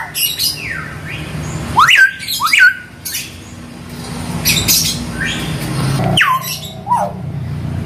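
Hill myna giving a string of loud, shrill whistles and squawks, several of them sliding down in pitch, with the two loudest about two seconds in. These are its natural calls, not mimicked words: it has not yet learned to talk.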